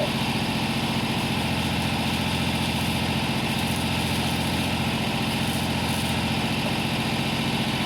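An engine running steadily at an even idle, unchanging throughout.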